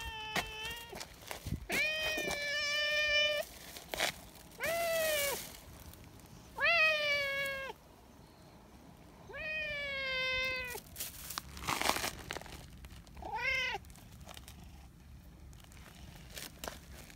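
Brown tabby cat meowing over and over: about five long meows a couple of seconds apart, then a shorter one near the end. These are the affection-seeking meows of a friendly cat being petted.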